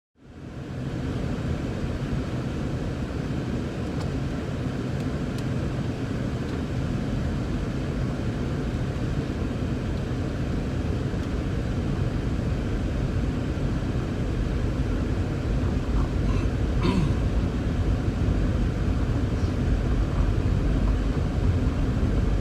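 Rover 45 driving on a snowy road, heard from inside the cabin: a steady low engine and road rumble that grows slightly louder over time.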